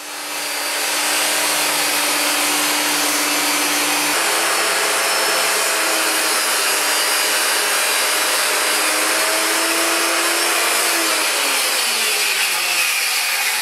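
Circular saw running steadily while ripping a thin strip off the edge of a door along a saw guide, its tone shifting abruptly about four seconds in. About eleven seconds in the motor winds down with a falling pitch and fades out.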